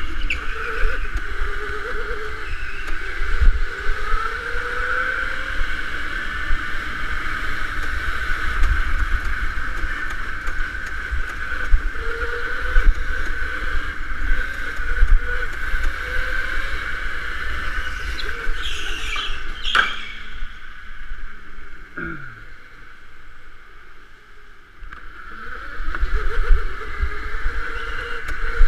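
Electric go-kart motor whining at speed, its pitch rising and falling with the throttle, over a low rumble. About 20 seconds in there is a sharp knock, the whine drops away with a falling tone, and it picks up again a few seconds later.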